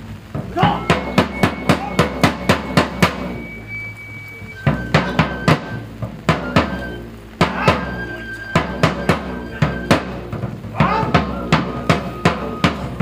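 Live drum and flute music: a wooden-shell snare-type drum struck with sticks in quick runs of about four beats a second, broken by short pauses. A flute plays long held high notes over it, sliding up into each note.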